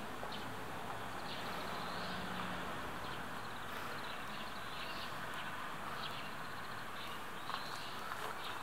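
Outdoor garden ambience: a steady background hiss with faint, short bird chirps now and then.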